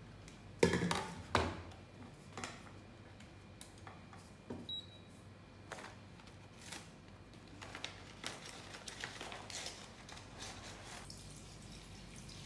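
A metal pot and a kitchen scale set down on a stainless steel counter with two or three sharp clanks about a second in, then scattered small knocks and the crinkle of a plastic bag being handled. Near the end, water starts pouring into the pot.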